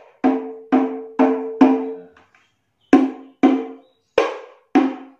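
Tam hadroh, a small hand drum with a Power Beat synthetic head, struck by hand eight times: four even strokes, a short gap, then four more, each with a brief pitched ring. It is at its out-of-the-box tuning, which can still be adjusted.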